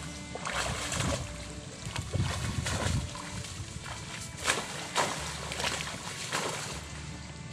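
Someone wading through shallow floodwater and pushing through dense leafy plants: water sloshing and splashing, with irregular sharp rustles and snaps of stems and leaves, over a low wind rumble on the microphone.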